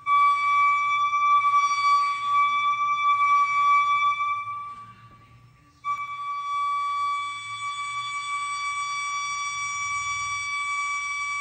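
The 2016 Forest Grove, Oregon mystery noise: a loud, steady, high-pitched whistling tone that does not change pitch, likened to a giant flute or metal screeching. It fades away about five seconds in, then cuts back in abruptly a second later and holds steady.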